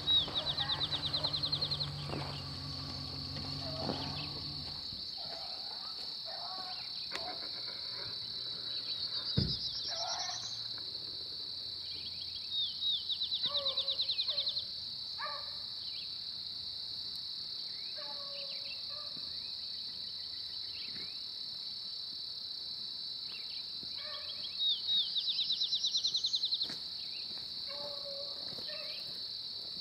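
A steady high-pitched chorus of insects fills the woods, and a loud, rapidly pulsing rising trill cuts in over it four times. Faint calls of the beagle pack baying on a rabbit carry from a distance, and there is a single knock about nine seconds in.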